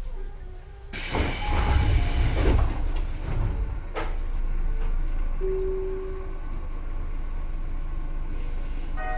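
Tobu 9000 series electric train underfloor equipment: about a second in, a loud burst of compressed-air hiss with low knocking lasts over a second. A single sharp clack follows about four seconds in, typical of the line breaker closing, then a brief steady hum. Near the end several whining tones from the traction control begin over a steady low rumble as power comes on.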